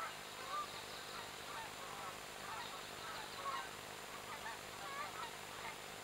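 A flock of Canada geese honking as they fly over, many short overlapping calls throughout.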